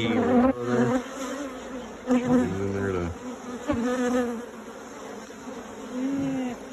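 Honey bees buzzing around an opened hive, with bees passing close to the microphone in loud swells about four times, the pitch bending as each goes by.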